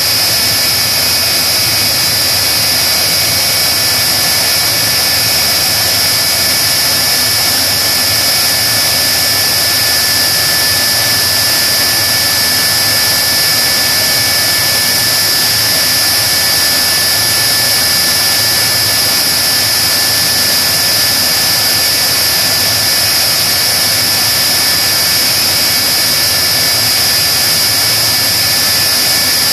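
General Electric J79 axial-flow turbojet running steadily in an engine test cell: a loud, even rush with a high, steady whine above it that does not change.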